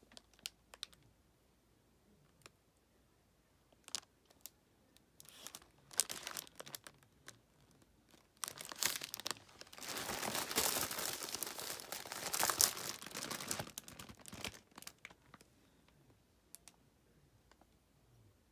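Plastic packaging and bubble wrap crinkling as food items are handled in a shipping box: scattered small clicks at first, then a few seconds of dense, loud crinkling in the middle before it dies back to light rustles.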